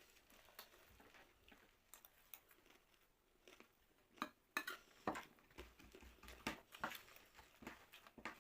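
Quiet eating sounds: scattered light clicks and taps of chopsticks against a plate, with soft chewing, getting busier about halfway through.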